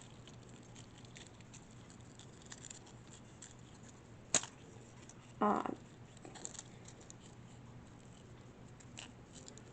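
Faint handling of a small plastic toy fingerboard and its clip-on skate shoes, with light ticks, a sharp plastic click about four seconds in and another near nine seconds, and a brief pitched sound about five and a half seconds in.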